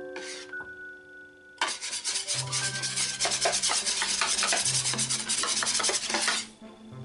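Wire whisk beating a thick beer batter in a metal baking tray: rapid scraping strokes from about one and a half seconds in, stopping near the end.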